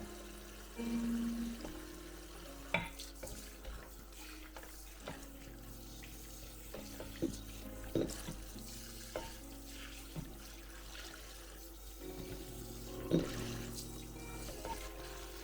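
Kitchen work: water running at a sink, with dishes or utensils knocking sharply several times, over soft background music.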